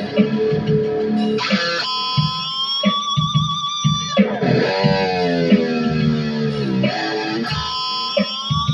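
Electric guitar with a Floyd Rose tremolo played through an amplifier: picked notes and high held notes with a wavering vibrato, with pitch bends that slide down and back up.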